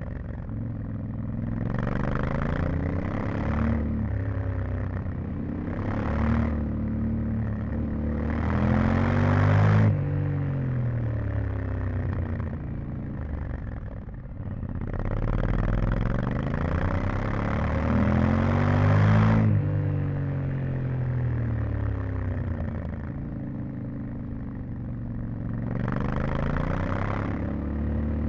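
Yamaha Ténéré 700's 689 cc parallel-twin engine with its stock exhaust, heard onboard while riding: it pulls up through the revs several times, the hardest pulls about a third of the way in and around the middle, each with a rushing hiss. After each pull the throttle shuts abruptly and the revs fall away on engine braking.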